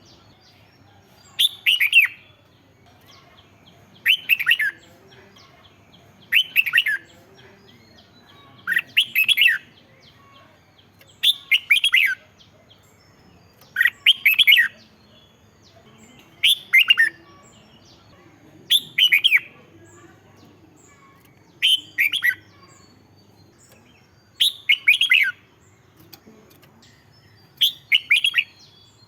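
Red-whiskered bulbul singing short, bright warbled phrases, one about every two and a half seconds with near-identical spacing.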